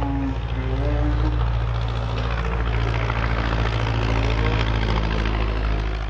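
Light single-engine propeller airplane flying low overhead, a steady engine drone.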